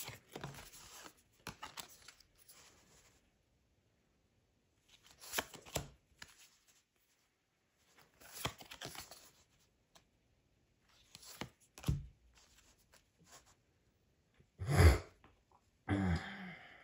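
Stiff cardboard game cards sliding and flicking against each other as a hand sorts through a stack, in several short rustling bursts with quiet gaps between. Near the end comes one louder, deeper sound.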